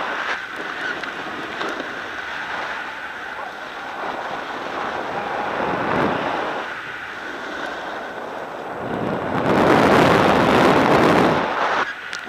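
Wind buffeting the camera microphone and board edges scraping over packed snow while riding downhill. A louder, longer scrape swells about nine seconds in and breaks off near the end.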